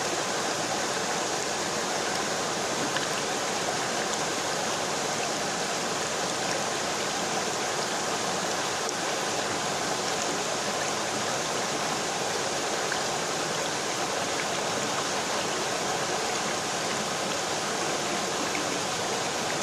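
A river flowing: an even, steady rush of water with no change in level.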